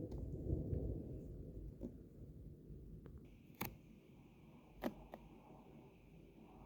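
Low rumble of thunder dying away over the first two seconds, then two sharp clicks a little over a second apart.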